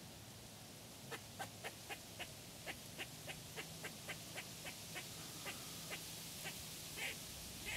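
Squirrel barking: a run of short, sharp chucks, about four a second, starting about a second in, then thinning to a few single calls near the end.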